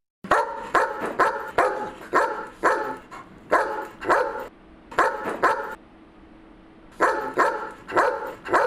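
A dog barking repeatedly, about two barks a second, in short runs. There is a pause of about a second some six seconds in, before the barking resumes.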